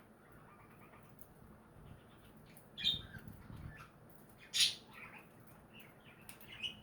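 Budgerigars giving a few short squawks and chirps, the loudest about three and four and a half seconds in, with faint chatter between.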